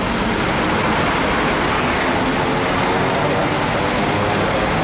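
Mitsubishi medium bus's diesel engine idling, a steady loud rumble with a faint hum.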